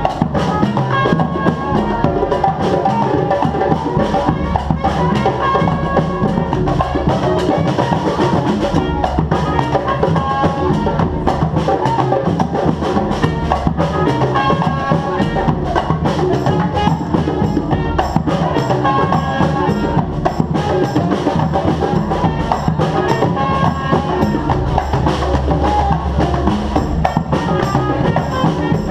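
Live street band playing: drums and percussion keep a steady beat under short melodic notes.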